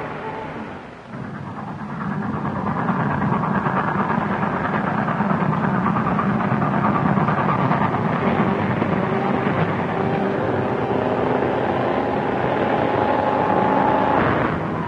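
Steam locomotive running at speed, a dense steady rush of train noise, with a steady tone like a whistle in the last few seconds.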